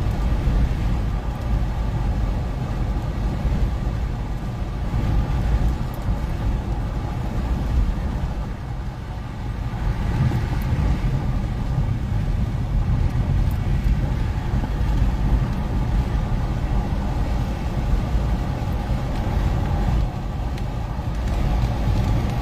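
Steady road and engine noise inside a moving car: a dense low rumble with a faint hum.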